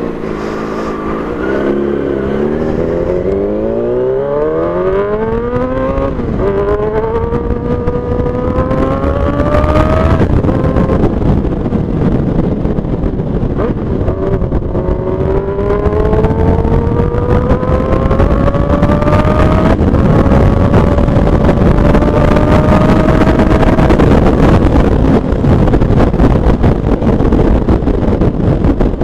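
Yamaha R6 inline-four sport bike with an SC Project aftermarket exhaust accelerating hard through the gears, its engine note climbing in pitch and dropping back at upshifts about six, fourteen and twenty seconds in, then running on at speed over a rush of wind. The exhaust is loud.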